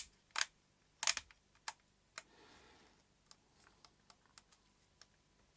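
Clicks from working the controls of a Konica Hexar RF rangefinder camera body: a few sharp clicks in the first two seconds, then fainter light ticks.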